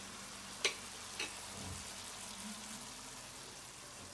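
Liver steak in its soy sauce cooking in a pan, sizzling faintly and steadily, with two light clicks of a utensil against the pan a little over half a second apart near the start.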